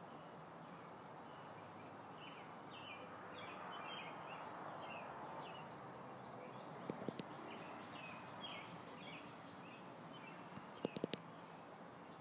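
Faint steady background hiss with short high chirps repeating every half second or so. Two small clusters of sharp clicks come partway through and near the end.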